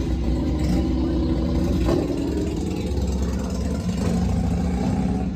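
Vehicle engines idling, a low steady rumble with a brief rise about two seconds in.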